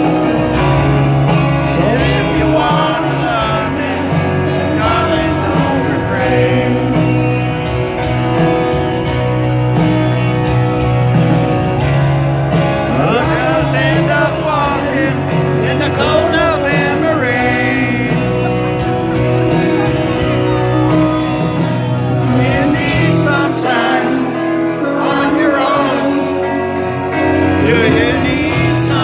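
Loud live arena concert music heard from the audience: a male singer with a band, the singer accompanying himself on piano.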